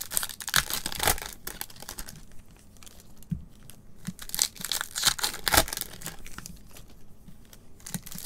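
Foil trading-card pack wrappers (Topps Chrome packs) crinkling and being torn open by gloved hands: an irregular run of sharp crackles and rips, busiest near the start and again about halfway through.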